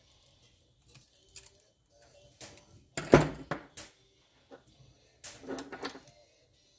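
Brass air-hose fittings and hand tools clinking and knocking on a workbench as a coiled air hose is set down and small fittings are picked up. The loudest knock comes about three seconds in, with another burst of clatter a couple of seconds later.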